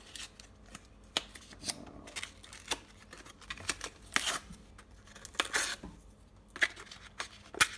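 Hands working the parts of a kitchen sink strainer basket: scattered clicks and scrapes, with two longer scraping sounds around the middle.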